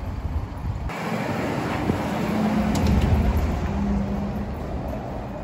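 Street ambience with road traffic noise. About a second in the background changes abruptly to a louder, rushing noise with a faint hum.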